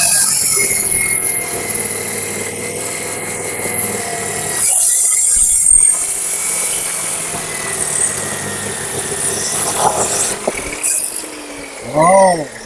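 Lintop benchtop abrasive cut-off saw with a 355 mm cutting disc running at full speed and grinding through square steel tubing. The grinding gets louder for a couple of seconds in the middle of the cut, and a short, loud sweeping sound comes near the end.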